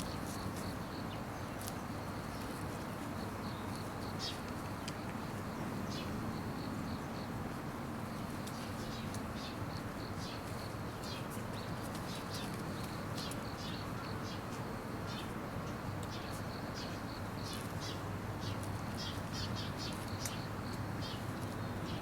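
Shiba Inu puppies suckling: many quick, irregular small high clicks and squeaks over a steady hiss, coming thicker in the second half.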